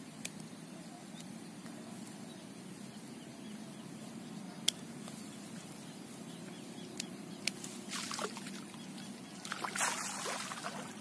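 Shallow ditch water running steadily, with a few sharp clicks from digging at a root in the bank; from about eight seconds in, splashing footsteps wading through the shallow water.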